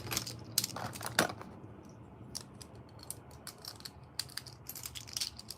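Beyblade Burst tops clicking and clattering against hard plastic: a couple of louder knocks about a second in, then a run of quick, lighter ticks.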